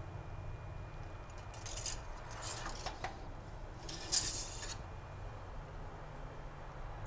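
Oil dipstick being pulled from its tube and wiped with a rag under the hood: a few short scrapes and light clinks, the loudest about four seconds in, over a low steady hum.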